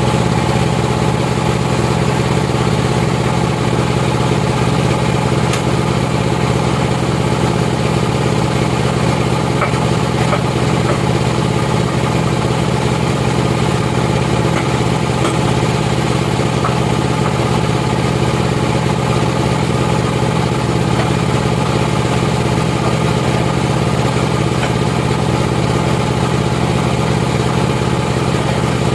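Sawmill machinery running steadily: an even motor or engine hum with no change in pitch or loudness.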